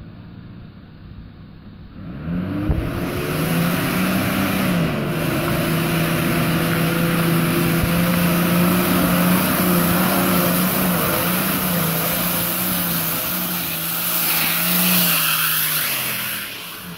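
Four-wheel drive's engine revving up about two seconds in and held at high revs under load as it climbs a steep muddy track, easing off near the end.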